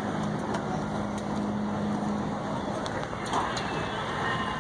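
Diesel pickup truck engines idling at a drag strip starting line: a steady low drone over open-air background noise.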